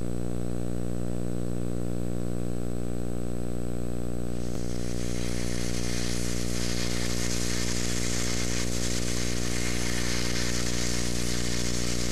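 A steady electrical hum made of many evenly spaced tones. About four and a half seconds in, a loud crackling hiss joins it and carries on.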